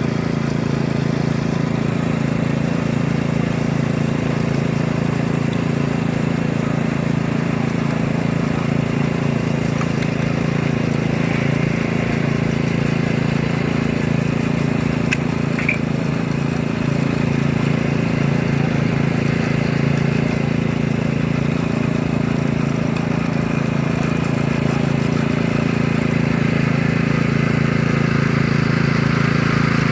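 Power trowel's small engine running steadily as the machine smooths fresh concrete, a constant even hum.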